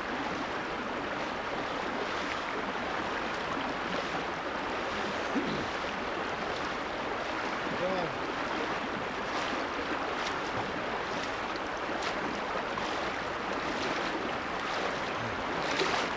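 Shallow creek running over rocks close to the microphone, with wading footsteps splashing through the water, the splashes getting louder near the end as the wader comes up close.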